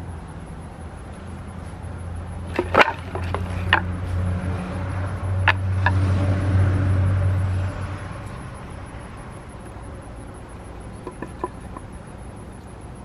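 Split pieces of pear wood knocking together as they are picked from a pile and laid on a log chair frame: a cluster of sharp knocks about three seconds in and a couple more near the middle. Under them a steady low engine drone swells and then cuts off about two-thirds of the way through.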